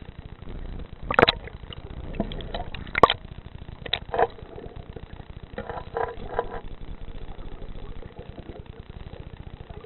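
Irregular muffled knocks and clicks over a steady low rumble, as picked up by a camera in a waterproof housing under the sea. The loudest knocks come about a second in and about three seconds in, and a short cluster of softer ones follows near the middle.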